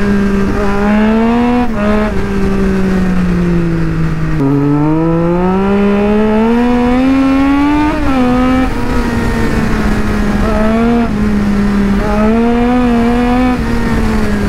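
Sport motorcycle engine running at road speed. Its revs dip about four seconds in, then climb in a long pull through the gear. They fall abruptly with an upshift about halfway through, hold fairly steady with small rises and falls, and ease off near the end.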